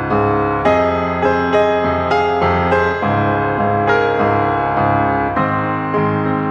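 Piano music: single notes struck about twice a second over held chords.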